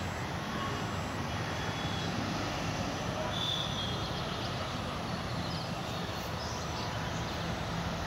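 Steady outdoor background noise: a low rumble with hiss, like distant traffic, and a few faint high chirps around the middle.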